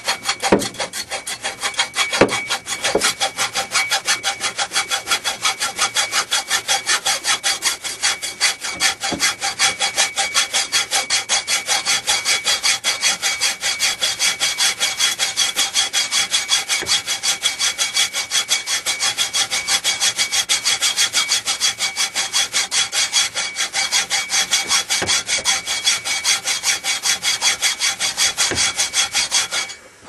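Hand-held hacksaw blade sawing with quick, even back-and-forth strokes, about four or five a second, a steady rasping of metal teeth.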